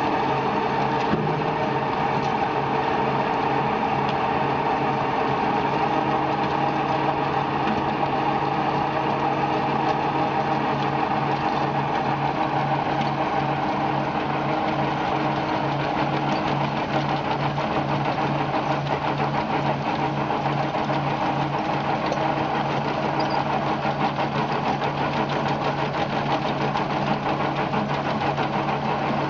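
A machine running steadily, with a fast, even rattle over a constant hum.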